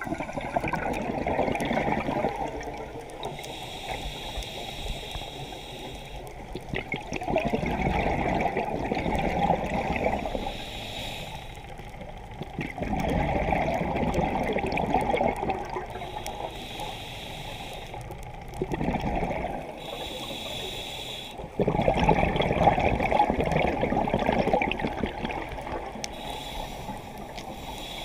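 Scuba diver breathing through a regulator: five bursts of bubbling exhaust a few seconds long, one every five or six seconds, with a fainter hiss of inhalation between them.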